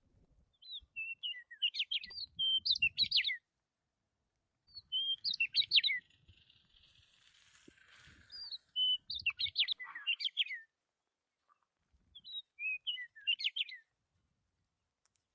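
A small bird singing: four short phrases of quick, high chirps and whistles, a few seconds apart.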